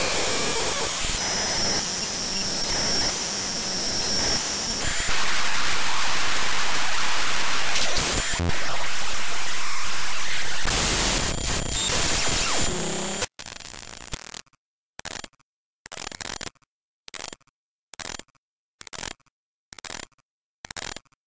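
The Audacity program file (audacity.exe, Unicode 1.3 Beta) played back as raw audio data: dense hiss and static with a few steady high whistling tones. About 13 seconds in it breaks into short bursts of static separated by silence, a little more than one a second.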